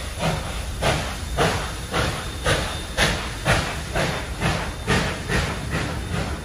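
NSWGR 59 class 2-8-2 steam locomotive 5917 working under steam, its exhaust beating evenly at about two chuffs a second over a steady hiss of steam.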